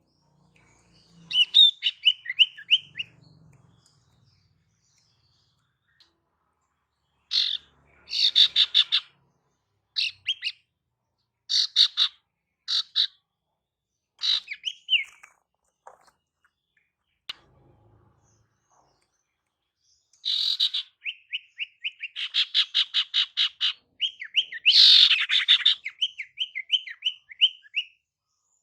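Female sirtu (common iora) calling: phrases of quick, high chirps and rattling trills with short gaps between them, ending in a run of short falling whistled notes. This is the female's call that bird-catchers play to lure males.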